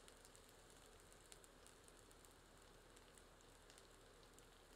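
Near silence: a faint crackle of onions frying in ghee in an iron kadhai, with sparse tiny ticks.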